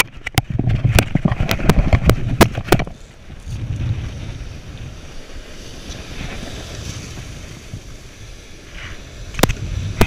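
A quick run of sharp knocks and rumble from a sleeve or glove rubbing the camera in strong wind for the first three seconds, then a steady wash of surf breaking on jetty rocks under wind on the microphone, with one more sharp knock near the end.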